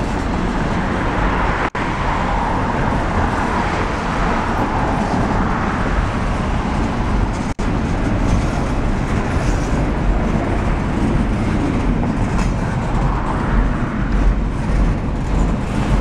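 Double-stack intermodal freight cars rolling past: a steady rumble of steel wheels on the rails, cutting out momentarily twice.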